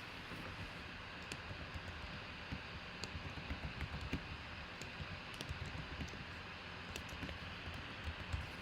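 Faint, scattered light clicks and small handling noises over a steady background hiss, busier from about three seconds in.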